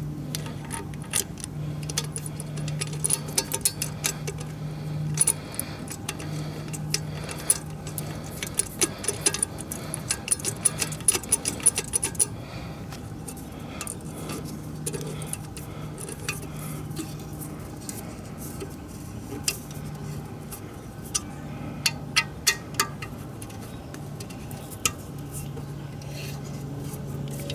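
Hand tools clinking and clicking against the metal fittings of a turbo oil drain line as it is tightened: irregular sharp metallic taps, in clusters through the first half and again near the end, over a steady low hum.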